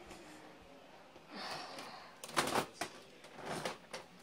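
Soft rustling, then a cluster of sharp clicks and knocks a little over two seconds in, with a few more clicks near the end.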